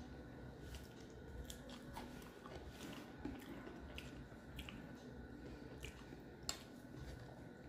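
Faint close-up chewing of rice and fish curry eaten by hand, with scattered small wet clicks and ticks. One sharper click comes about six and a half seconds in.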